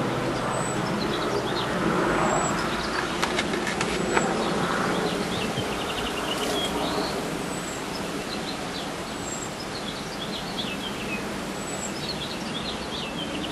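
Small birds chirping and trilling again and again over a steady outdoor background noise, with a few faint clicks about three to four seconds in.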